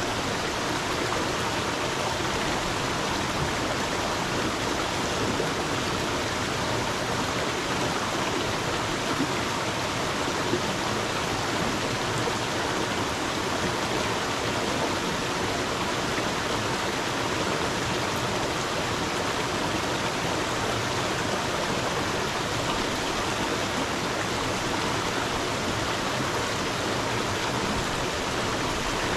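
Stream water flowing and splashing steadily.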